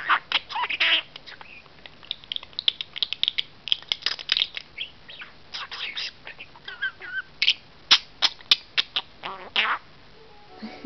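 Pet budgie (budgerigar) chattering: a fast, irregular run of chirps and clicks, broken by loud, harsh screechy calls.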